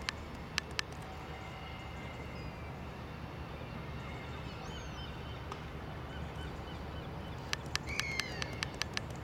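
Distant low, steady rumble of a Colas Rail Class 70 diesel locomotive, a GE PowerHaul V16, hauling empty cement wagons across a viaduct. A few short bird calls come over it, and a quick run of sharp clicks comes near the end.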